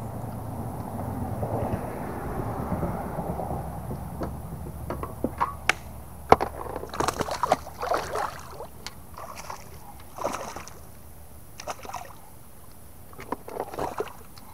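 A small bowfin (grinnel) thrashing and splashing in the water beside a kayak while hooked on the line: a wash of splashing at first, then a long string of short, sharp splashes and knocks.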